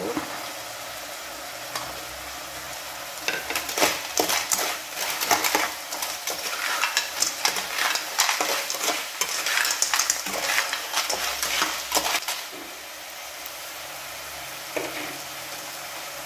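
Cockles in their shells frying with sliced red onion in a nonstick pan, sizzling steadily. From about three seconds in until about twelve seconds in, a stainless steel spatula stirs them in a dense clatter of shells and metal against the pan.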